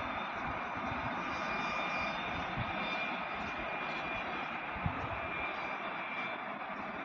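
Zipline trolley running down the steel cable, a steady whir with faint high tones held through it. One short soft knock about five seconds in.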